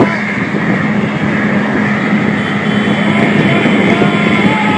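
Semi-truck diesel engine running steadily at highway speed, with a constant low hum over road and wind noise, heard from inside a truck cab.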